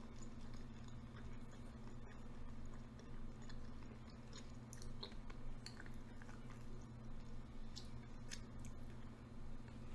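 A person chewing a mouthful of food, with soft scattered mouth clicks, over a low steady hum.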